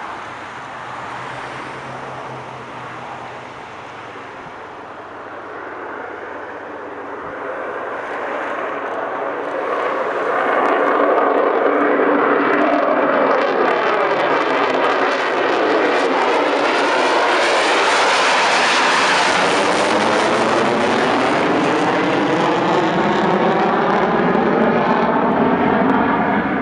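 Military fighter jet engine noise during takeoff: the roar builds over several seconds, then stays loud and steady, its tone sweeping as the jet passes.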